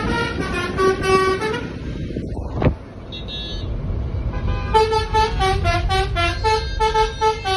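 Telolet musical horn, a set of electric trumpet horns playing a tune of stepped, held notes. It breaks off briefly about two seconds in and resumes stronger about five seconds in, over a low engine rumble.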